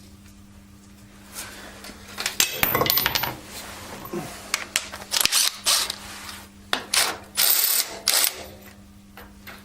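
Hand tools and metal parts knocking, clinking and scraping in irregular clusters, the way they sound when someone handles and tries tools on a tractor's hydraulic and PTO housing. The first two seconds hold only a faint steady hum.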